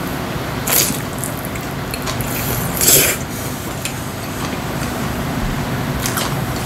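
A man slurping spicy cold noodles (bibim-guksu) off chopsticks: a short slurp, then a longer, louder one about three seconds in, followed by chewing, over a steady low hum.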